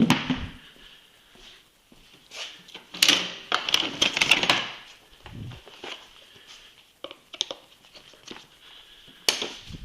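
Plastic side panels of a snowmobile being popped off: a run of clicks and knocks, with a burst of loud clattering about three seconds in.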